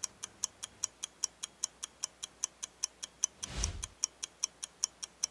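Rapid, even mechanical ticking, about five ticks a second, like a clock or a wind-up kitchen timer counting down, with a brief soft whoosh about three and a half seconds in.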